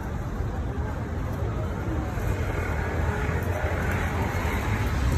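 City street traffic: a box lorry's engine and tyre noise with a steady low rumble, getting somewhat louder toward the end.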